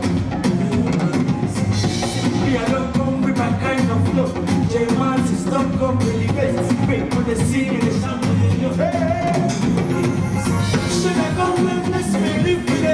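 Music with singing over a drum kit, keeping a steady beat.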